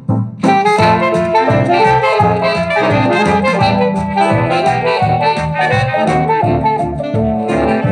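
Background music: a lively, jazzy instrumental with a melody over a steady beat, coming back in after a brief break right at the start.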